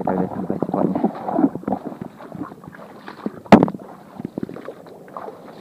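Footsteps wading and pushing through mangrove branches and shallow water, with a single sharp crack about three and a half seconds in.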